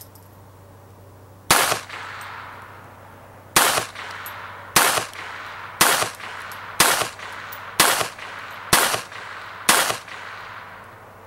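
SIG Sauer Mosquito .22 LR pistol firing Norma Tac-22 40-grain rounds: eight single shots, the first two about two seconds apart, then a steady string at about one shot a second, each trailing off in a short echo.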